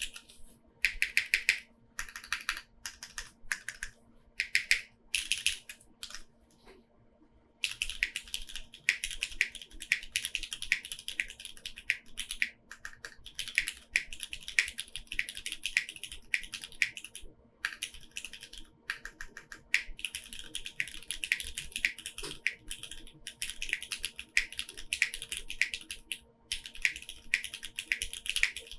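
Typing on a Neo65 Core Plus mechanical keyboard with lubed Cherry MX2A Black linear switches, GMK keycaps and no case foam. For the first several seconds the keystrokes come in short separate groups; about seven seconds in it turns to fast continuous typing with a few brief pauses. A faint steady hum runs underneath.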